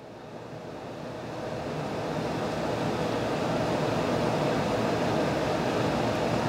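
A steady rushing noise with no clear tone, swelling over the first two or three seconds and then holding steady.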